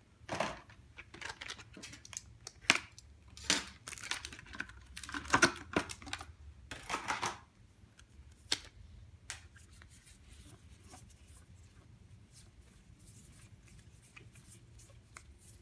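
Clear plastic wrapping on a deck of trading cards crinkling and tearing as it is opened by hand, in quick irregular rustles and crisp clicks for the first seven seconds or so. After that, quieter handling of the cards with only a few light clicks.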